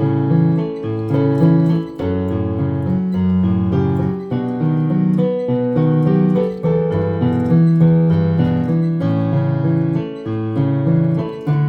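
Electronic keyboard with a piano sound playing a hymn accompaniment: chords over a moving bass line.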